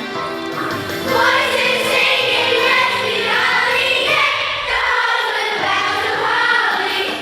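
A student choir singing a song with instrumental accompaniment; the voices come in about a second in.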